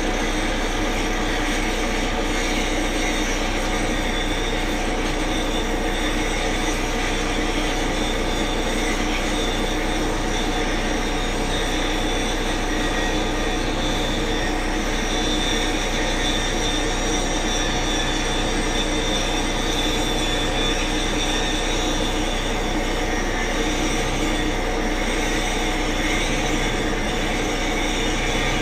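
A machine running steadily, with a constant whine over a low drone.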